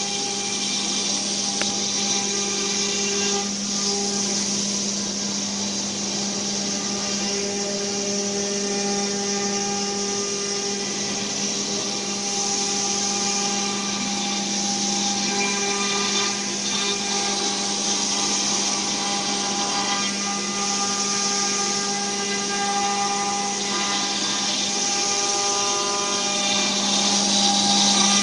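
CNC wood router spindle running at a steady high speed with a constant whine, the bit routing into a wooden board with a steady cutting hiss, a little louder near the end.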